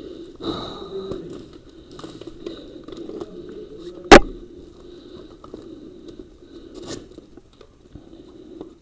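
A single sharp crack about four seconds in, the loudest sound here, with a fainter click near seven seconds, over low rustling and muffled voices.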